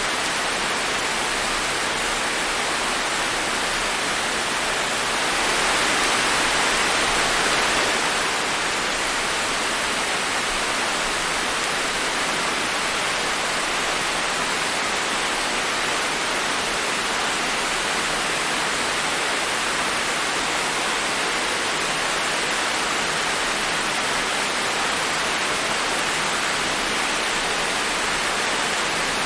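Steady rain falling, an even hiss, swelling slightly for a few seconds about five seconds in.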